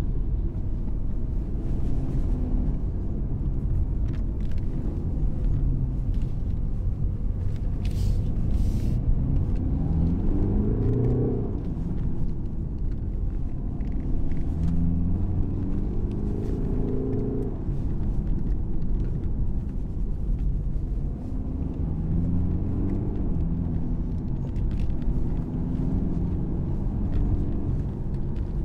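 BMW 420d's 2.0-litre four-cylinder diesel heard from inside the cabin while driving, over a steady low rumble of road noise. The engine note climbs three times as the car accelerates, each time falling away again.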